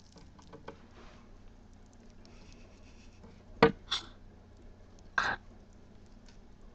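Gerbils moving about their tank: two sharp knocks close together a little past halfway, then a short scrape about a second and a half later, over a faint steady background.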